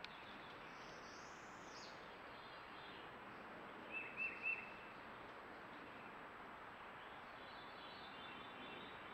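Steady hiss of a trail camera's microphone, with three short, sharp bird chirps in quick succession about four seconds in and a fainter high bird call near the start.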